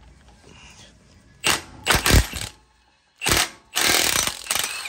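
Cordless Milwaukee impact wrench hammering in three bursts, the last about a second long, loosening the 24 mm nut on a truck driveshaft at the carrier bearing.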